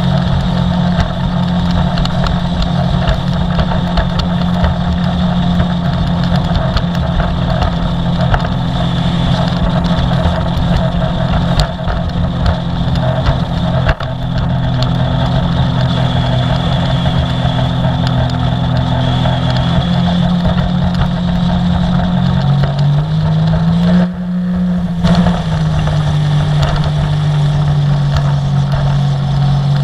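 Sea-Doo personal watercraft engine running steadily at cruising speed, with water rushing past the hull. About three-quarters of the way through, the engine pitch rises and falls as the throttle changes, and the sound goes briefly muffled.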